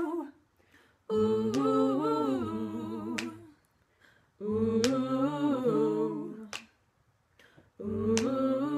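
A small group of voices singing a cappella 'ooh' chords in harmony, three phrases of about two and a half seconds with short silent gaps between them. Finger snaps mark the beat about every one and a half to two seconds.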